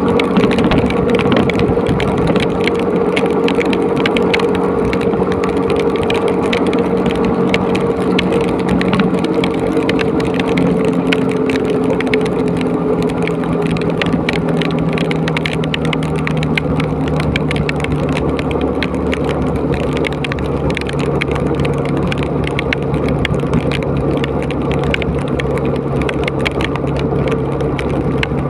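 Motorcycle engine running steadily while riding at road speed in heavy rain, with wind rushing over the microphone and rain spattering on it. The engine note drops somewhat about halfway through.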